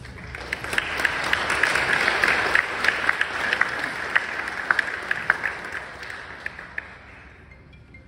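Audience applauding: many hand claps that build up about half a second in and die away near the end.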